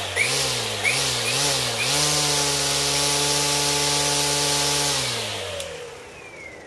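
Ego 56-volt cordless string trimmer motor spinning the head with no load. The trigger is blipped a few times so the pitch rises and dips, then it is held at steady speed for about three seconds. On release the motor winds down with a falling whine. Pretty quiet.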